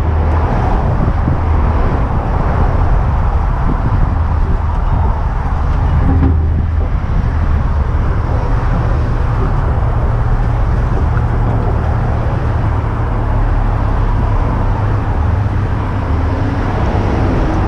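A heavy vehicle's engine running steadily with a low rumble, most likely the wrecker tow truck's engine.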